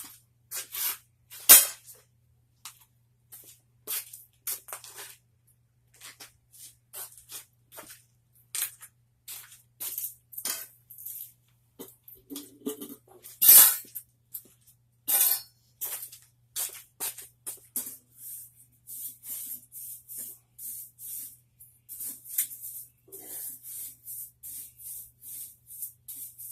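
Grill fire crackling and popping in irregular sharp snaps, with the loudest snaps about a second and a half in and about thirteen seconds in, over a faint steady low hum.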